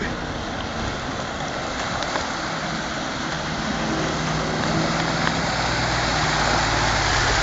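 Land Rover County's V8 engine running as the truck climbs out of the river, its low hum growing louder as it comes closer over the last few seconds. Under it, the steady rush of fast river water and the splash of the wheels through the shallows.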